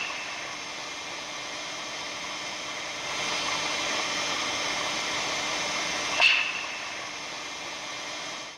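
Steady hiss with a single sharp crackle about six seconds in, offered as the sound of the aurora borealis. It fades out at the very end.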